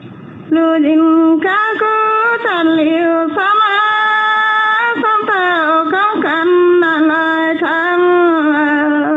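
A woman singing solo and unaccompanied in a Dao 'pả dung' antiphonal folk song, holding long notes that slide and waver between pitches. The singing begins about half a second in.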